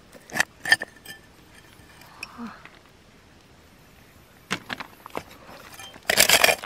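Hard objects knocking and clinking together: a few sharp knocks in the first second, a short cluster about four and a half seconds in, and a longer clattering rattle near the end.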